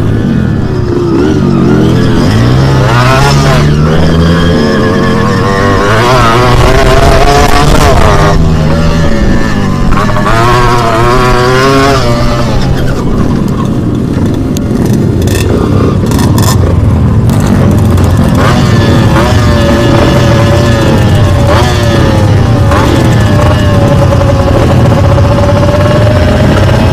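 Two-stroke dirt bike engine revving up and down repeatedly as it is ridden, then running at a steadier, lower note for the last several seconds.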